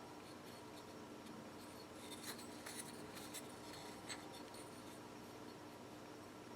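Faint light clicks and scraping from small carburetor parts and tools being handled, a handful of ticks clustered in the middle, over a steady faint hum.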